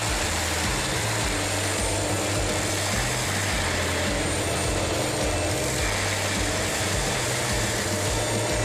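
Brush-clearing machine running steadily: a constant engine drone with the whir of its cutter and no marked changes.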